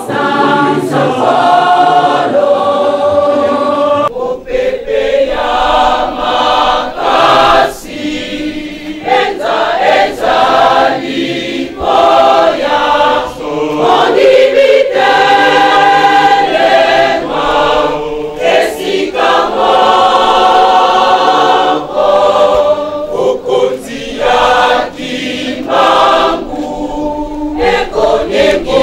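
Large church choir singing a hymn together, phrase after phrase, with brief breaks between the lines.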